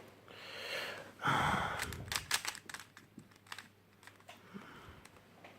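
A plastic Rubik's cube being handled and turned, with a soft scraping rustle near the start and then scattered light clicks of the layers turning.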